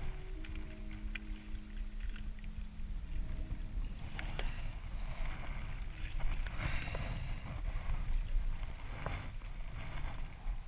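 Wind rumbling on the microphone of a chest-mounted camera, with rustling and a few sharp knocks as the camera mount and a landing net are handled.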